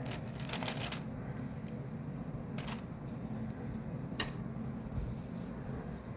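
Rustling handling noise of paper and packaging for about a second, then a low steady hum with a few isolated sharp clicks, the sharpest about four seconds in.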